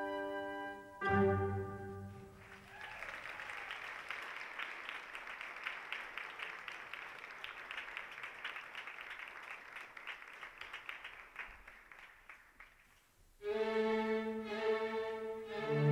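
Recorded orchestral ballet music ends on a final chord, then an audience applauds for about ten seconds. Orchestral music with bowed strings starts again near the end.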